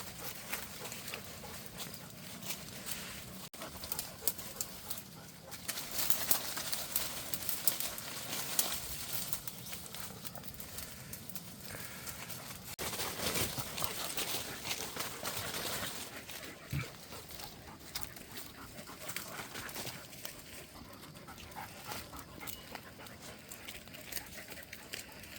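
A dog outdoors, with many scattered short clicks and rustles over a steady background hiss.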